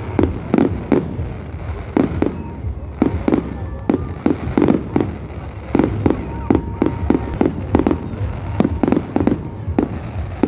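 Fireworks display going off: a rapid, continuous run of sharp bangs, several a second, over a steady low rumble.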